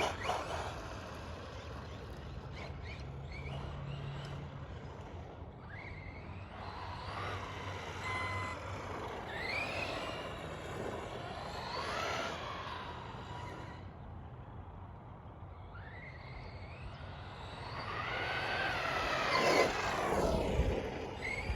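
Brushless electric motor and gear drivetrain of an ARRMA Granite 4x4 BLX 3S RC monster truck whining through several throttle bursts, the pitch rising and falling with each one. The loudest pass comes near the end.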